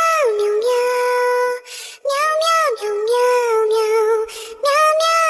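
A high-pitched, childlike singing voice in a music track. It sings short repeating phrases that each slide down in pitch and then hold a note, with brief breaks between phrases.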